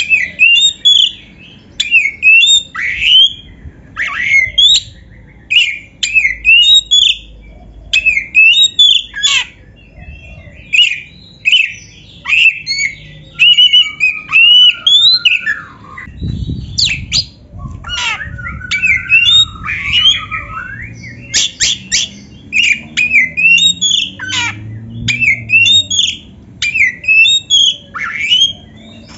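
Oriental magpie-robin (kacer) singing loudly and almost without pause: fast, varied phrases of whistled and harsh, squawky notes, each a second or so long, with short breaks between them.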